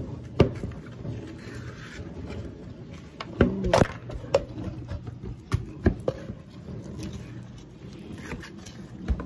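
Wire whisk stirring brownie batter in a plastic mixing bowl: scraping, with irregular knocks and clicks against the bowl.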